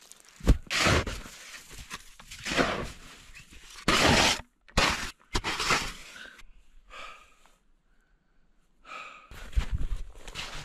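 Packed snow crunching and scraping in a run of separate strokes, the sound of digging and crawling in a snow tunnel, with a quieter stretch about two-thirds of the way through.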